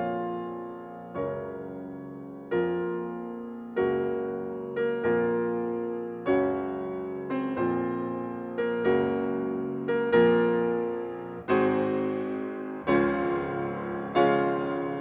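Slow background piano music: chords struck roughly once a second, each ringing and dying away before the next.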